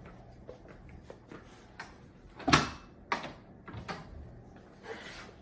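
A few knocks and clunks from parts of a kitchen island being handled, the sharpest about two and a half seconds in.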